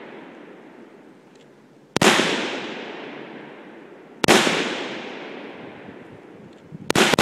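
AR-15 rifle shots: single shots about two seconds apart, then a quick pair near the end, each followed by a long echoing decay.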